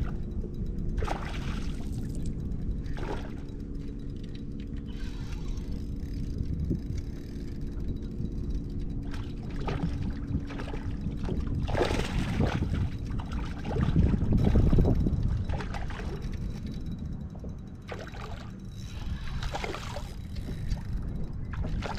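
Water sloshing and gurgling against a boat hull, over a low rumble, with scattered knocks. A steady hum runs through the first half and stops about halfway.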